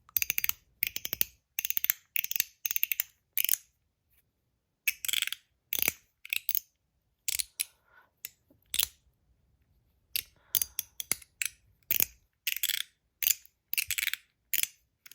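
Stainless steel MOT Groove mechanical slider fidget being slid back and forth, giving short runs of sharp metallic clicks as it snaps through its detent positions. The runs come with brief pauses, the longest about four seconds in and again around nine seconds in.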